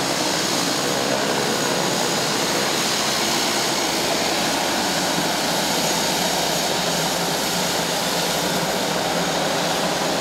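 Beechcraft 1900 twin turboprop engines running steadily as the airliner taxis: an even propeller and engine noise with a thin high whine over it.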